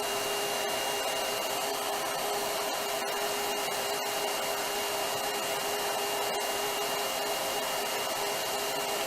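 A Trezoro ceramic, tourmaline and ionic hair dryer running steadily: a deeper air rush rather than a high-pitched whine, with a faint steady high tone above it. This is a new dryer that has just finished its breaking-in smoke.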